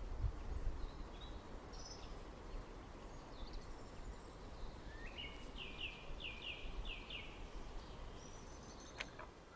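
Songbirds calling: scattered high chirps, with a quick run of about six notes around the middle, over a faint low rumble. A single sharp click near the end.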